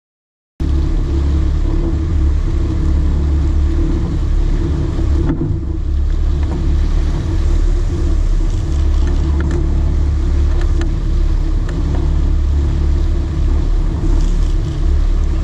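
Sport-fishing boat's engine running steadily, a loud low rumble under an even hiss of wind and water, starting about half a second in.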